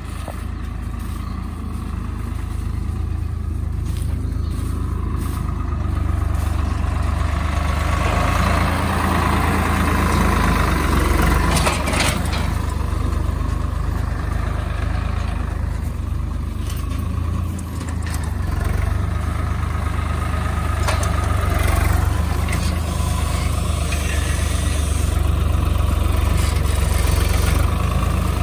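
Swaraj tractor's diesel engine running steadily, growing louder over the first several seconds as it works the loader, with a sharp knock about twelve seconds in.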